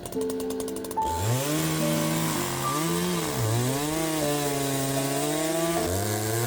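Gas chainsaw revving up about a second in, its pitch dipping briefly as it cuts into the log, then held high while sawing the wood.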